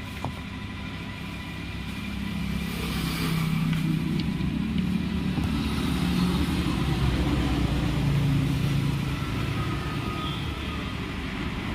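A motor vehicle's engine running close by, growing louder about two seconds in and easing off near the end, with a few faint clicks over it.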